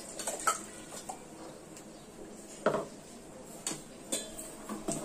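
Steel utensils knocking against a stainless steel cooking pot as ground masala paste is scraped from a mixer jar into chicken curry and the curry is stirred with a steel ladle: a handful of scattered metallic clinks, the loudest about two and a half seconds in.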